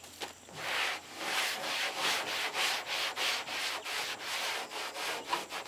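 A cloth rag wiping back and forth over a truck's rusty sheet-steel hood, spreading a patina sealer into the rust. The quick rubbing strokes come about four a second and start about half a second in.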